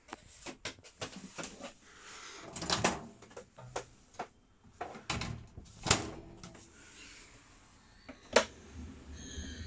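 Campervan kitchen drawers and cupboard doors being opened and shut by hand: a quick series of clicks and knocks with short sliding sounds, and one sharper knock near the end.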